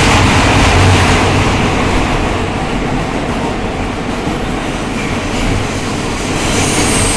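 New York City Subway E train running on the rails, heard from inside the car: a loud, steady rumble of wheels and running gear that eases slightly midway and builds again near the end, when a high whine comes in.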